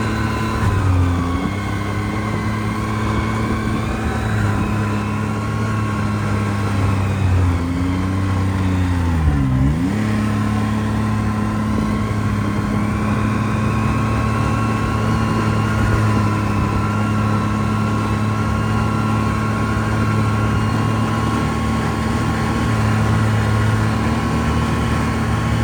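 Snowmobile engine running steadily on a trail. Its pitch dips and comes back up briefly about a second in, and dips more deeply again around nine seconds in, as the throttle is eased and reopened.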